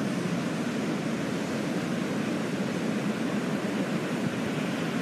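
A steady, even rushing background noise with nothing standing out in it.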